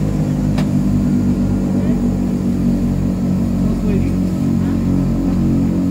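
Twin Otter's PT6A turboprop engines and propellers running while the aircraft taxis, heard from inside the cabin as a loud, steady, deep drone. A single short click sounds shortly after the start.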